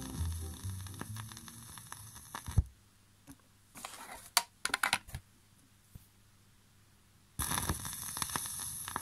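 A ska 45 fades out on a record player, ending in a sharp click about two and a half seconds in. Light clicks and knocks follow as the 7-inch vinyl single is lifted off and a new one is put on the spindle. From about seven and a half seconds in there is a steady hiss and crackle of the stylus running in the new record's lead-in groove.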